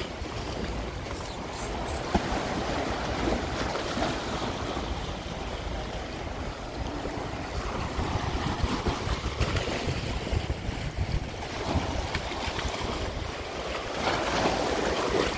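Small sea waves washing and splashing over shoreline rocks in a steady wash, with wind buffeting the microphone.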